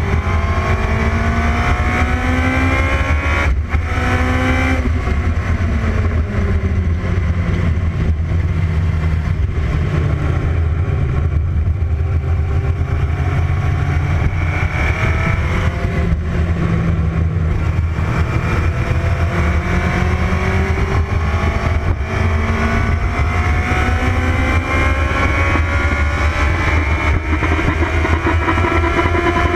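Formula Promotion single-seater's racing engine at full race pace on track, its pitch climbing through the gears and dropping as the car slows for corners, over heavy wind noise in the open cockpit. There is a brief cut at a gear change about three and a half seconds in, and the engine climbs again near the end.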